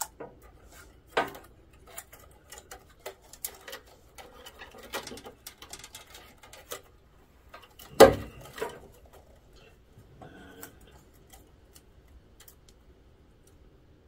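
Scattered clicks, knocks and light rustling of hands working among the wire connectors and ribbon cables inside an open printer, with sharper knocks about a second in and around eight seconds in.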